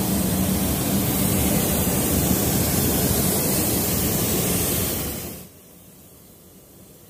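Air spray gun hissing steadily as it sprays matte clear coat onto a car body, cutting off suddenly about five and a half seconds in.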